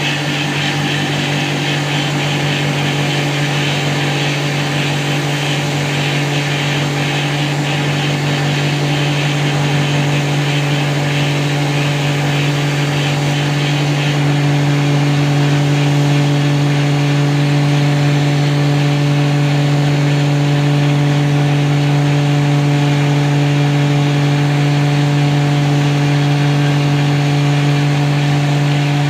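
Electric grinder motor running at a steady pitch with a humming drone. For about the first half a rough grinding hiss rides over it as steel is worked on it, then the hiss fades while the motor keeps running.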